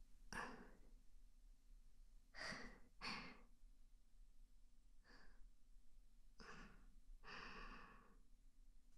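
A woman's soft breaths and sighs close to the microphone: about six short, faint exhales spaced a second or two apart.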